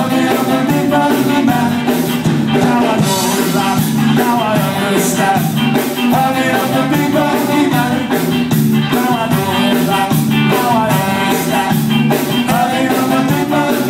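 Live ska band playing a song with a steady, even beat: electric guitars, saxophone, bass and drums, with a singer on vocals.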